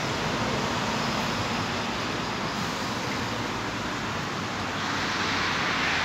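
Steady rushing noise of riding along on a mobility scooter, mostly wind on the microphone, with no distinct events; it grows a little louder near the end.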